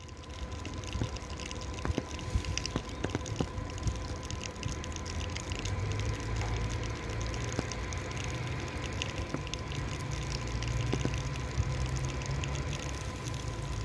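Rain falling and dripping, with many small drip ticks over a steady hiss. A steady high tone runs under it and cuts off near the end, and a low rumble builds from about a third of the way in.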